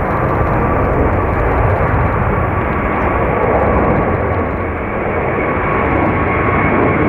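Airbus A350's Rolls-Royce Trent XWB turbofan engines at takeoff power as the airliner climbs out overhead: a loud, steady, dense rumble with a faint steady whine running through it.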